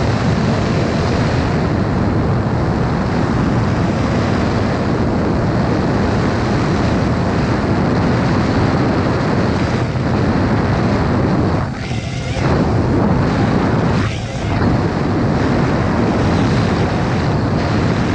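Ducted 4-inch drone's motors and propellers running in flight, a loud rushing drone noise with wind on the microphone. The sound drops briefly twice, about twelve and fourteen seconds in.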